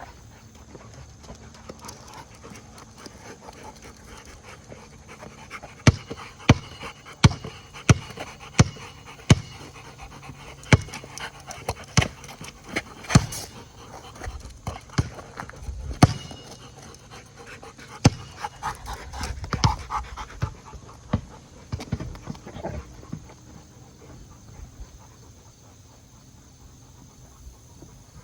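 Dog panting, with a run of sharp clicks or knocks, roughly one a second, from about six to sixteen seconds in.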